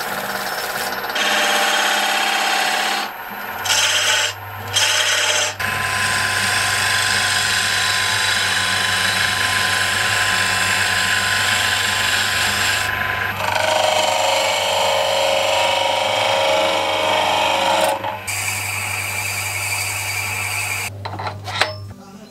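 Small wood lathe running while a turning tool cuts a black locust handle: a steady hiss of the cut over the hum of the lathe motor. The cutting breaks off briefly a few times in the first six seconds, and the motor stops near the end.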